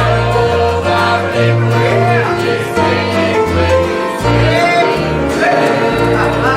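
Gospel hymn sung by voices over instrumental accompaniment with a moving bass line.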